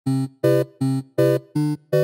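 Upbeat electronic intro music made of short, clipped synth chords repeating at about two and a half a second.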